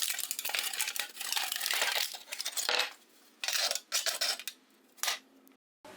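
Small metal objects clinking, rattling and scraping as they are handled: a busy run of clinks for about three seconds, then three short separate clatters.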